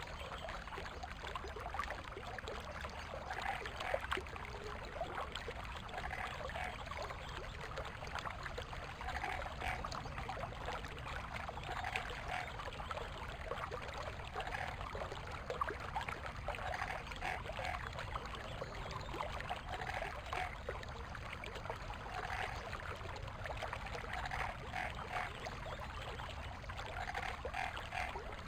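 Water flowing steadily over stones in a forest creek, with brief gurgles and splashes recurring every second or two.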